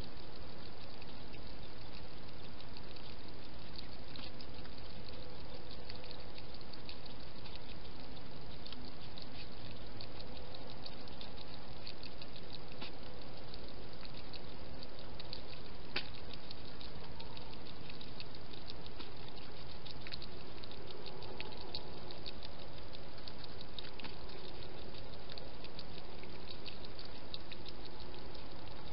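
A hedgehog eating or drinking at a dish: many small, quick, irregular clicks and smacks from its mouth over a steady hiss.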